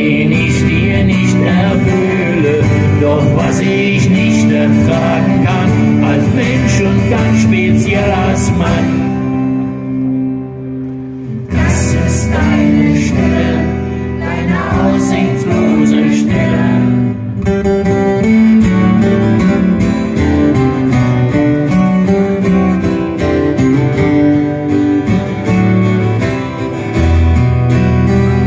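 Live acoustic rock ballad: two acoustic guitars strummed and picked, with a singing voice. About ten seconds in the music thins for a moment to low notes before the full sound comes back.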